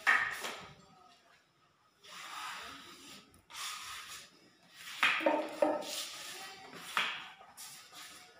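Plastering blade scraping skim coat across a wall in a series of hissing strokes, a second or two apart, the loudest at the start and about five seconds in.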